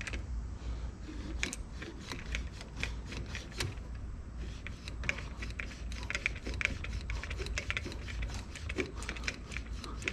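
Rapid, irregular small clicks and ticks, like typing, from hands working at a CV joint boot as grease is packed into it.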